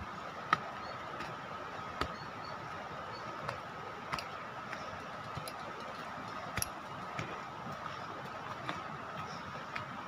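Footsteps climbing a dirt path strewn with dry bamboo leaves: irregular sharp clicks and crunches, roughly one a second, over a faint steady high-pitched hum.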